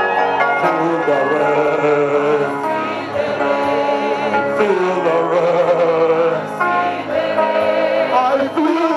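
Gospel worship music with singing: held, wavering sung notes over a steady musical backing.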